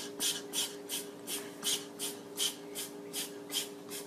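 A cat chewing and tugging at the leaves of a potted plant: a crisp crunch or rustle about three times a second, with a steady low hum underneath.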